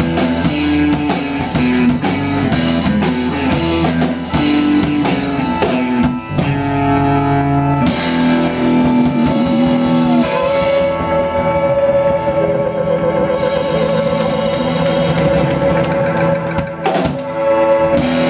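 Live rock band of drum kit, electric guitar, bass and keyboards playing out the end of a song. After about six seconds of full-band playing the band holds a chord, and a long sustained note with a wavering pitch rings over continued drumming, with heavy cymbal and drum hits near the end.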